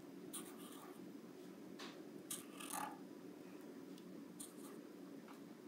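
Permanent marker being drawn across paper: a handful of short, faint scratchy strokes, irregularly spaced, over a low steady room hum.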